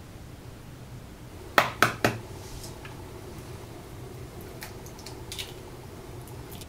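Three quick, light knocks against a stainless steel mixing bowl about a second and a half in, followed by a few fainter ticks, as egg is handled over the bowl.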